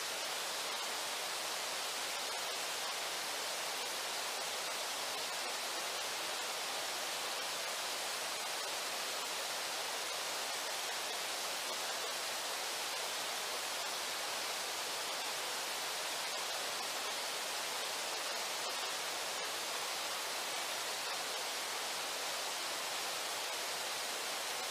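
River water rushing steadily: an even hiss without breaks.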